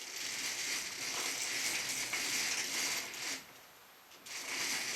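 Chain-operated roller blind clutch mechanism and bead chain running as the chain is pulled, driving two linked roller blinds: a continuous mechanical whir for about three seconds, then again for about a second after a short pause.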